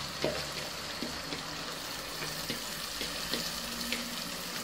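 Soaked basmati rice poured from a plastic bowl into hot oil and frying onions, setting off a steady sizzle, with a few small clicks of grains and bowl.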